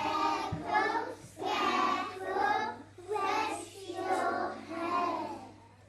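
Young children singing a song in phrases, which stop shortly before the end.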